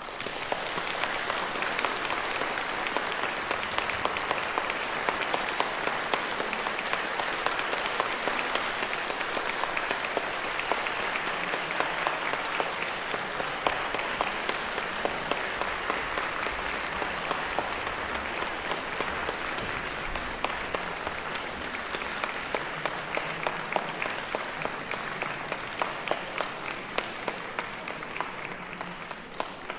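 Audience applauding: dense clapping starts at once, holds steady, and thins a little near the end, where single claps stand out more.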